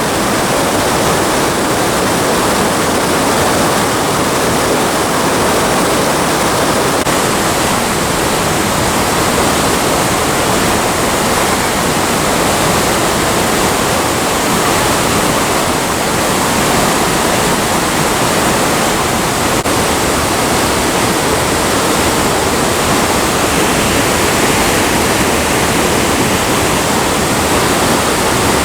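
Waterfall, a steady loud rush of falling water.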